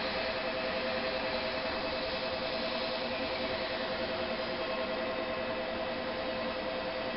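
Steady two-note electronic ringing, like a Shinkansen platform departure bell, over a constant hiss; the ringing stops near the end.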